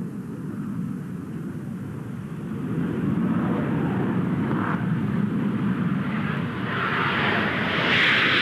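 RAF McDonnell Douglas F-4 Phantom's twin Rolls-Royce Spey engines in full afterburner on the takeoff roll: a deep jet roar growing steadily louder, with a harsher, higher rush building over the last couple of seconds as the jet lifts off.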